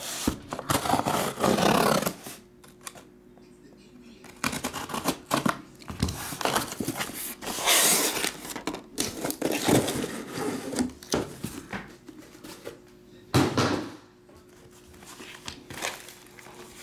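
A cardboard shipping case being opened by hand: a blade cutting the packing tape, the cardboard flaps pulled open, then the shrink-wrapped card boxes slid out. Irregular scraping, rustling and tearing with short pauses, and a sharp knock near the end.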